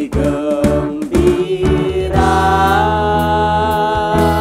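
A live band playing a song, with a man and a woman singing over acoustic and electric guitars, bass and drums. About halfway through, the music settles into long held notes.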